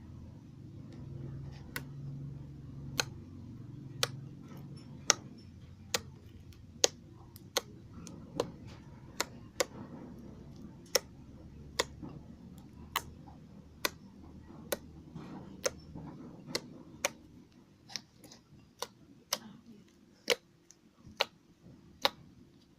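Slime being pressed and squeezed, its trapped air popping in sharp clicks about once a second, slightly uneven in spacing.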